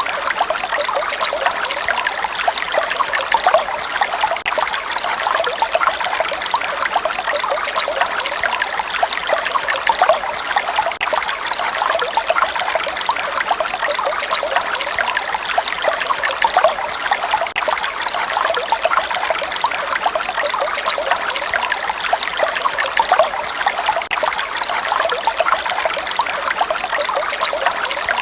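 Water trickling and babbling steadily, a continuous splashy burble without pauses.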